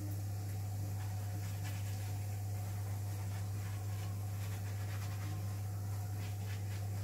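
Steady low electrical hum, with faint light scraping and tapping as a chapati is handled and turned on an electric chapati maker's hot plate.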